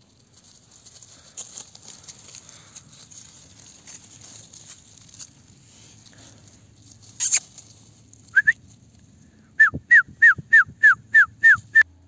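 Dry fallen leaves rustling as a Kangal puppy runs through them, then one sharp loud knock. Near the end comes a quick run of about eight high-pitched puppy yaps, each a short falling note, about three a second.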